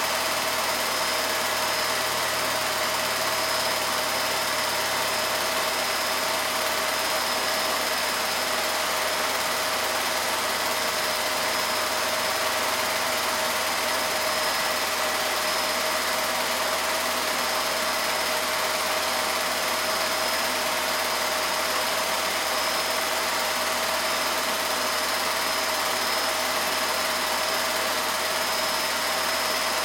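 Steady mechanical hum with hiss and a few held tones, unchanging throughout.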